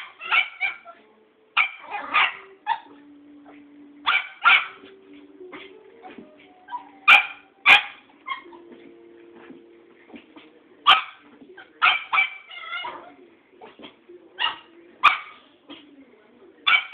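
Cairn Terrier puppy barking and yipping in short clusters every second or two, play barking at a cat it wants to play with.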